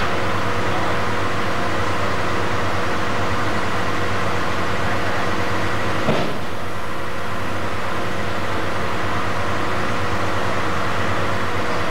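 A steady mechanical hum with hiss, unchanged throughout, broken by one short click about six seconds in.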